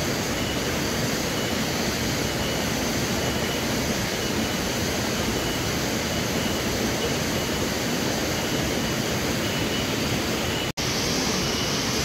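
Steady rushing noise with no distinct events, broken for an instant by a cut about eleven seconds in.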